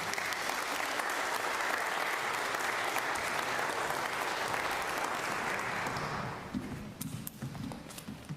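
Congregation applauding, which fades out about six seconds in.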